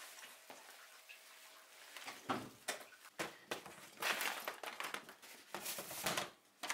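Rustling and handling noises in quick bursts from about two seconds in, as a bag is set down and a plastic box lid is opened.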